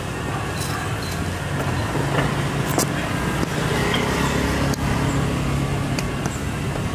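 Street traffic ambience: motor vehicle engines running with a steady low rumble, with a few short sharp ticks over it.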